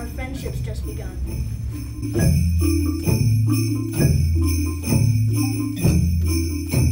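A school Orff ensemble playing: jingle bells shaking steadily. From about two seconds in they are joined by low bass notes struck about once a second on barred instruments.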